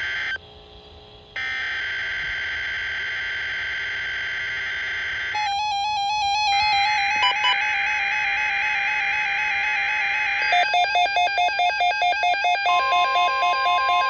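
Synthesized electronic alert tones: steady held tones with a brief drop-out about a second in, a change to a lower tone near the middle, then a pulsing beep about three times a second in the last third, joined by a steady high tone near the end.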